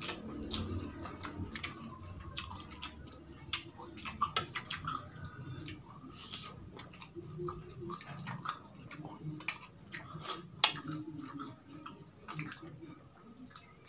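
A person chewing a hotdog close to the microphone: wet mouth sounds with many small smacking clicks.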